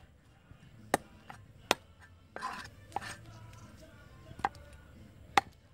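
A large knife chopping at a whole fish on the ground: about five sharp knocks at uneven intervals, with a short scrape of the blade in the middle.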